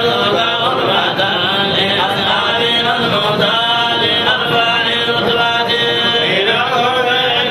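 Men's voices in a religious chant, with long drawn-out notes.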